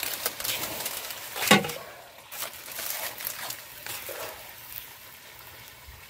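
Banana leaves and plastic rustling and crinkling as they are laid over a pot of rice on a wood-fire hearth, with a sharp knock about a second and a half in, then a quieter stretch with faint rustles.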